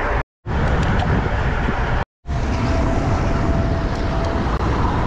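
Steady rush of riding noise from a road bike: wind buffeting the handlebar-mounted microphone over tyre noise on the road. The noise drops out to silence twice, briefly, at cuts.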